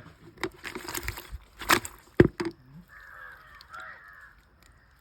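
Freshly caught pond fish thrashing and splashing in a bucket: a run of sharp slaps and knocks, loudest about two seconds in. Bird calls can be heard before and after the splashing.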